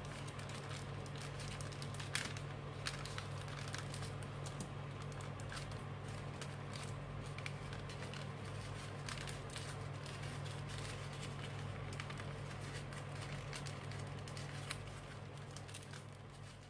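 A sheet of paper being folded and creased by hand: scattered light crinkles and small taps over a steady low hum. The sound fades out near the end.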